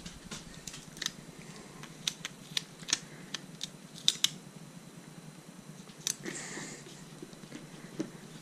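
Stickers being peeled and pressed onto a hard helmet shell by hand: scattered sharp clicks and crinkles from the backing and fingertips, with a brief rubbing rustle about six seconds in as a sticker is smoothed down.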